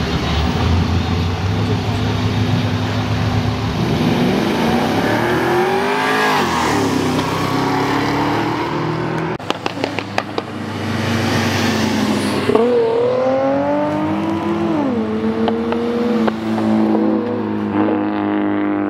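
Car engines revving hard as cars accelerate away. The pitch rises and drops as they shift, once about four seconds in and again about twelve and a half seconds in. A few sharp cracks come around ten seconds in.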